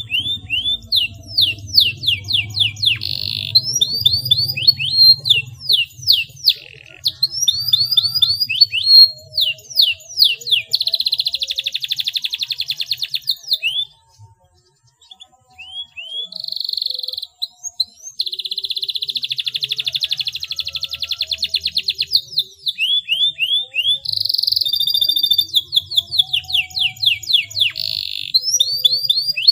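Domestic canary singing a long, loud song of fast repeated sweeping notes broken by dense rolling trills, with a short break about halfway.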